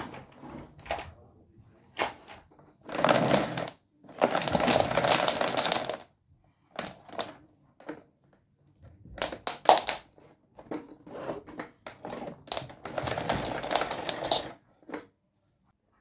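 Rowenta Compact Power canister vacuum cleaner's power cord rewinding into the machine, the cord rattling and slapping across the wooden floor in several noisy spells of one to two seconds, with clicks and knocks of the machine being handled in between.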